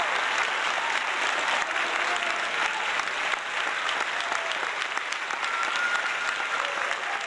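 Audience applauding a stage cast, a steady dense clapping with a few faint cheering voices over it, slowly fading toward the end.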